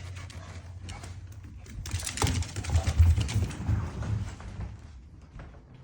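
Pitbull busy with a bone: a run of clicks and scuffling over a low rumble, loudest about two to three seconds in.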